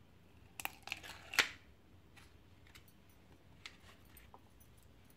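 Plastic wire egg slicer being handled over a glass plate: a quick run of sharp clicks and knocks about a second in, the last the loudest, then a few faint ticks.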